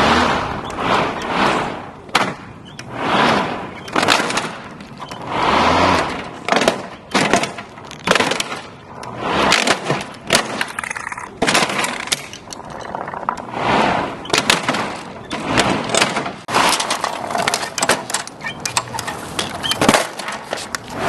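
Lawn mower running over toys and breaking them up: repeated surges of noise every second or two, with many sharp cracks and clatters of plastic being smashed.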